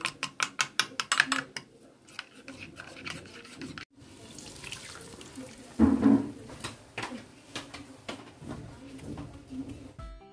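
A metal spoon clinks quickly and repeatedly against a bowl while stirring a watery spice paste, then rubs more softly. After a break, a spoon scrapes and stirs in a pan of simmering curry over a steady hiss, with one loud knock against the pan about six seconds in.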